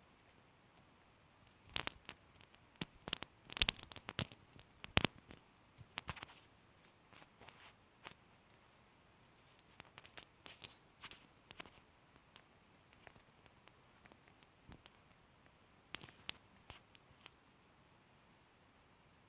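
Irregular sharp cracks and snaps of a mobile phone's plastic casing and circuit board breaking apart in a metal shredder, in three clusters with pauses between.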